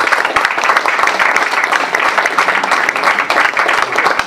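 A small group of a dozen or so people applauding by hand, steady dense clapping in a small meeting room.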